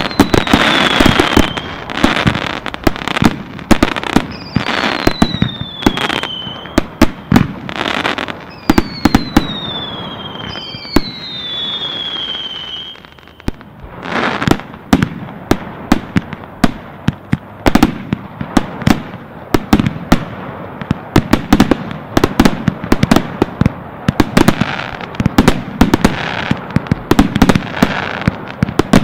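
Fireworks display: a rapid string of aerial shell bursts and bangs with crackle, and four whistling effects that fall in pitch in the first half. The bangs ease off briefly about halfway through, then come thick and fast again.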